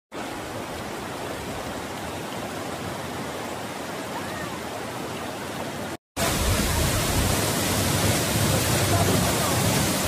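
Steady rushing noise like flowing or falling water, with no clear pitch. About six seconds in it drops out briefly at an edit, then comes back louder and deeper.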